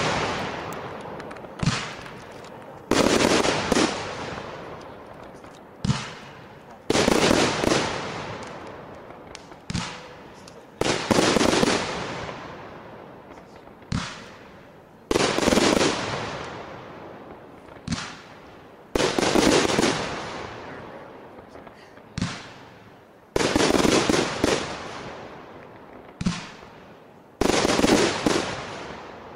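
Fireworks aerial shells going off one after another, about every four seconds. Each time there is a short sharp pop, then about a second later a louder bang that fades out over a couple of seconds.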